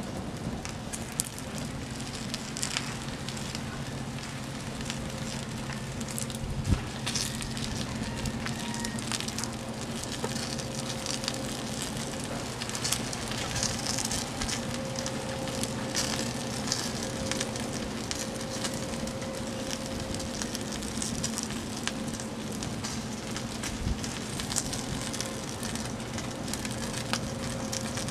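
Wood and cardboard food-and-drink boxes burning in a metal fire pit: the fire crackles, with many small pops over a steady rush of flame and one sharper pop about seven seconds in.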